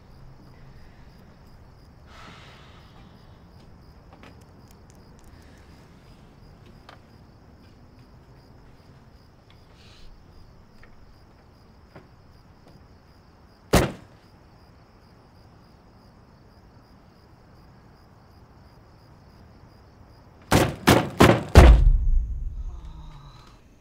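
Crickets chirping steadily. One sharp knock comes about halfway through. Near the end, four loud thuds follow in quick succession, the last a heavy booming thud that dies away slowly.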